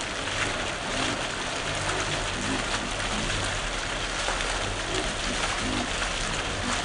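Heavy rain falling steadily onto dense leaves and wet paving.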